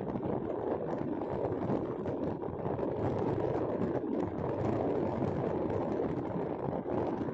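Steady noise of a vehicle driving along a paved road: engine and tyre noise mixed with wind, without any distinct events.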